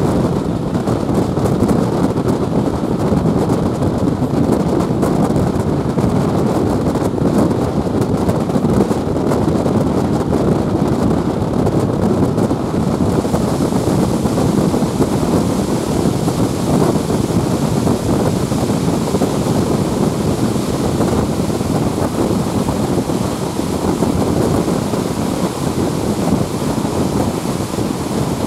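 Passenger train running at speed, heard from an open carriage window: a steady rush of wheels on rails and air, with wind buffeting the microphone. The hiss grows a little brighter about halfway through.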